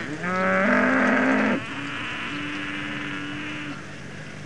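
Cattle mooing: a loud moo that rises in pitch, holds, and breaks off abruptly about a second and a half in. A quieter, steadier, lower call follows and lasts about two seconds.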